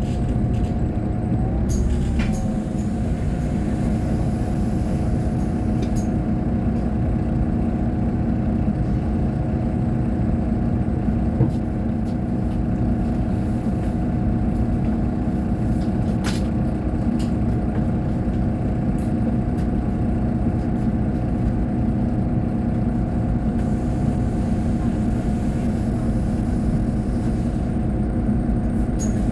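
Solaris Urbino 18 III articulated bus standing with its diesel engine idling steadily, with a few brief hisses from the air system.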